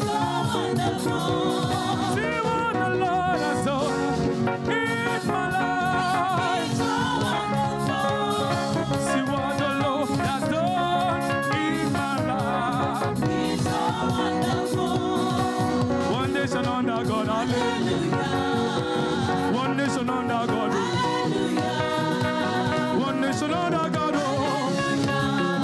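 Live gospel praise music: voices singing over a church band with drums and a steady dance beat.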